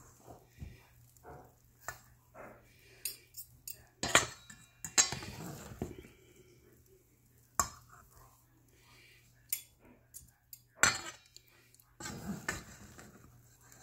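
Metal fork and spatula scraping and clinking against a stainless steel mixing bowl as wet sourdough dough is stretched and folded over itself: irregular scrapes with a few sharper clinks.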